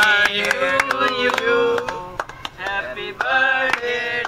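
A group of men singing a birthday song, with hand claps.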